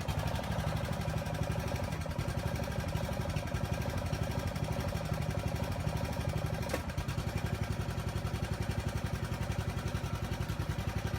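Small engine of a hydraulic power pack running steadily, driving the lifting cylinders that raise settled concrete steps. A sharp click sounds about seven seconds in.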